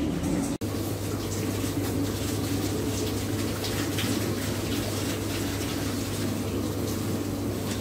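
Tap water running into a metal basin, with light splashing as hands wash in it, over a steady low hum.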